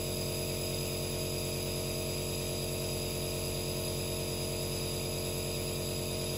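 Compressor nebulizer running with a loud, steady buzzing hum as it drives medicated mist through a face mask, a treatment for a cough and sneeze to help breathing.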